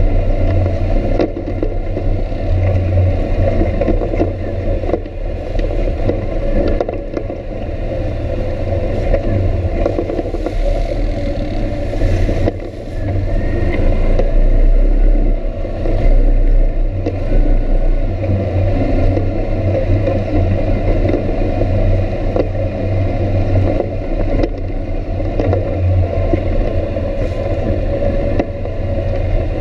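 Off-road vehicle's engine running steadily under way on a rough dirt trail, with bumps and knocks from the ride. The engine eases off briefly about twelve seconds in.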